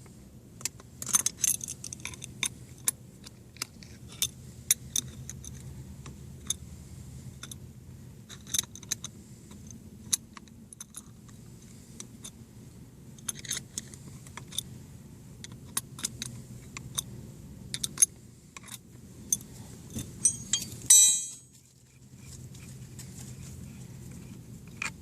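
Wrenches clicking and clinking on metal as the top nut is worked off a VW Jetta's rear shock absorber. The sharp metallic clicks come at irregular moments, over a steady low hum, with one louder clank about twenty-one seconds in.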